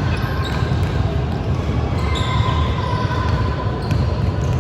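Basketball game sounds in a gym: the ball bouncing on the court, with a few short high squeaks over a constant low rumble from the hall.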